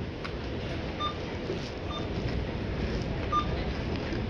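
Supermarket checkout barcode scanners beeping: three short beeps of one pitch at uneven gaps, over a steady low hum of store noise.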